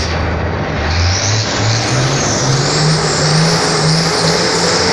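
Diesel engine of a Volkswagen drag-racing truck revving at the start line. Its pitch climbs in steps from about a second in, then holds high, with a high wavering whistle over it.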